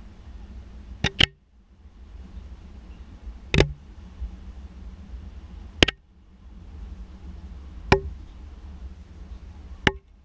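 Sharp knocks roughly every two seconds, the first one doubled, over a low steady rumble.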